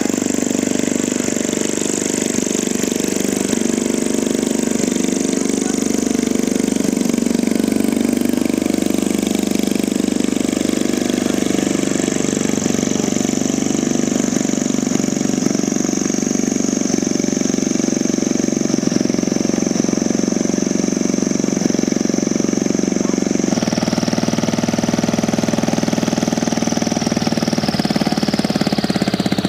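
Ultralight aircraft engine running steadily at high power, turning a propeller that is too large for it, so it cannot spin it properly and thrust stays low. The pitch sags slowly, the sound changes abruptly about two-thirds of the way through, and the pitch falls away at the very end.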